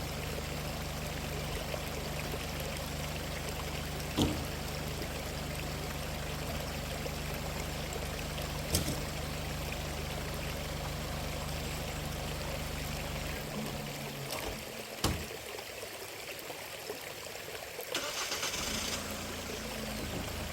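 A vehicle engine idling steadily, then shutting off about thirteen seconds in, with a stream running. A few sharp clicks or knocks sound along the way.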